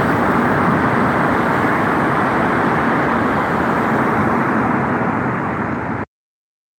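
Steady noise of road traffic, cut off abruptly about six seconds in.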